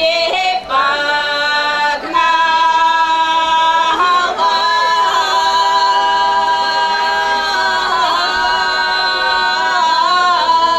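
A group of four women singing a Bulgarian folk song unaccompanied, in long held notes sung together, with short breaks and sliding pitch at the end of each phrase.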